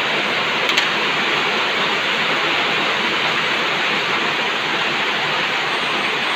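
Heavy rain falling steadily, a dense, even hiss. One brief click about a second in.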